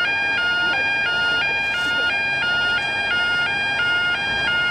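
Yodalarm YO5 level crossing alarm sounding: a loud two-tone warble that alternates between two pitches about three times a second, warning that the crossing is activated for an approaching train.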